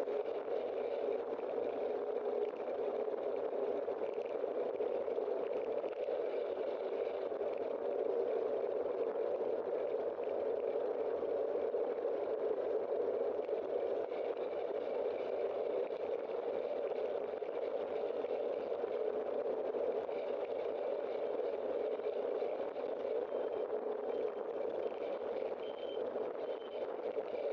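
Steady, muffled rushing of wind and road noise on a bicycle-mounted camera while riding.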